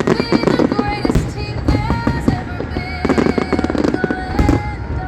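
Fireworks shells bursting in rapid, overlapping bangs and crackles, over music played along with the show.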